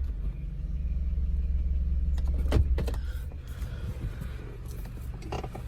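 2009 Honda CR-V's four-cylinder engine idling, a steady low hum heard from inside the cabin, running on a failing alternator with the battery nearly flat. A sharp click comes about two and a half seconds in, after which the hum is quieter.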